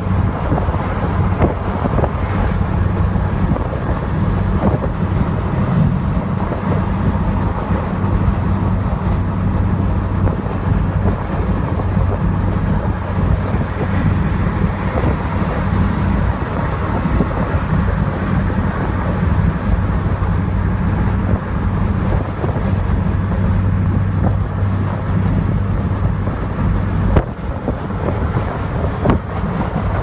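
Loud, steady wind rushing over the open cockpit of a 1992 Corvette C4 convertible driven top-down at highway speed, buffeting the microphone, over a steady low drone from its V8 engine and tyres.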